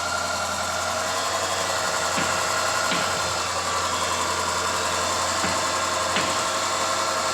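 Range Rover 405 engine idling steadily, with a few faint clicks here and there. The noisy pulley and worn drive belt behind its humming noise have just been replaced, and the owner judges it okay now.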